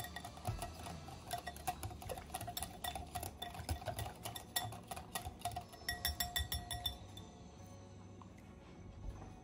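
Metal wire whisk beating batter in a glass mixing bowl: fast clicking of the wires against the glass, which rings with each strike. The whisking stops about seven seconds in.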